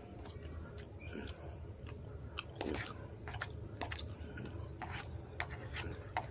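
A man chewing and eating rice and goat curry, with wet mouth sounds and short clicks scattered throughout, some from a metal spoon scraping a plastic bowl. A low steady hum runs underneath.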